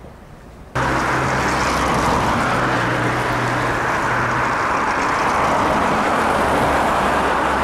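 Loud, steady noise of road traffic, with a low engine hum, as a car passes close by; it starts abruptly about a second in.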